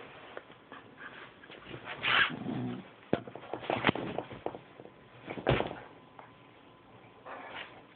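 A Jack Russell terrier and a larger black dog play-fighting, making short, irregular dog noises along with a few sharp knocks and scuffles, loudest in the middle.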